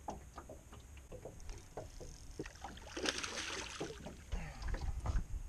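Spinning reel and rod handling clicking and knocking as a small bass on a drop-shot rig is reeled to the boat, with a splash as the fish thrashes at the surface about three seconds in. Low knocks and rumble of handling follow near the end.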